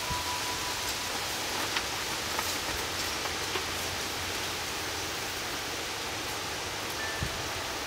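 Steady rain falling, with scattered individual drips. A faint wind-chime note rings out right at the start.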